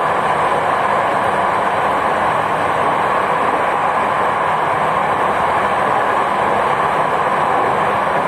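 Jakarta MRT train running through the tunnel, heard from inside the carriage: a steady, even rumble and hiss of wheels on rail, with a faint low hum underneath.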